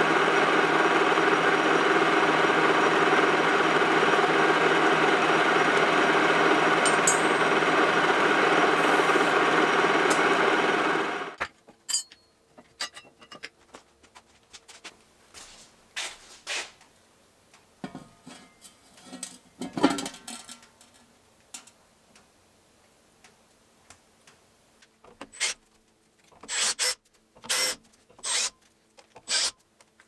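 Metal lathe running steadily under power, its motor and gearbox giving a constant hum, then stopping suddenly about a third of the way through. After that, scattered light clicks and knocks of a small steel part being handled, with a quick run of clicks near the end.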